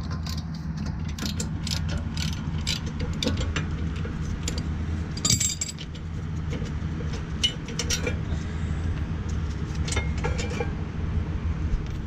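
Socket wrench ratcheting and metal tools clinking as the 18 mm caliper bracket bolts are undone on a rear brake, a run of quick clicks followed by scattered clinks, one louder about five seconds in, over a steady low hum.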